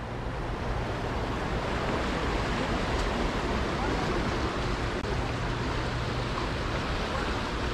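Steady rush of fast-flowing, churning river water, mixed with wind.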